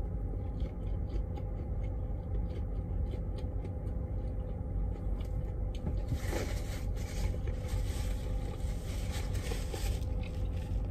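Steady low hum inside a semi-truck's cab, with faint clicks and rustles of someone eating a wrapped sandwich and a louder rustle about six seconds in.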